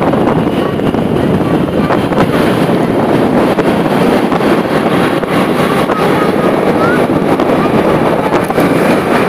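Steady loud wind rush on the microphone of a moving motorbike, mixed with its running engine and road noise.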